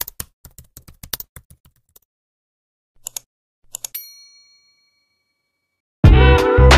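Subscribe-animation sound effects: a quick run of keyboard typing clicks for about two seconds, two mouse clicks about three seconds in, then a notification bell ding that rings out for about a second. About six seconds in, loud music with a heavy bass beat cuts in abruptly.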